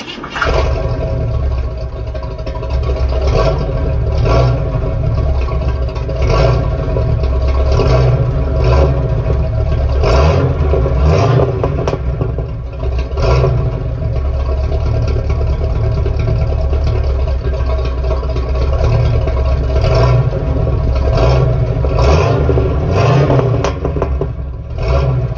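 1968 Cadillac Eldorado's 472 V8 heard at the tailpipe, running at idle with repeated short throttle blips about once a second.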